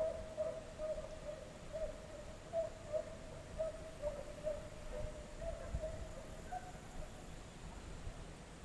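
Hunting hounds baying while running a deer: a steady string of short, same-pitched calls, about two a second.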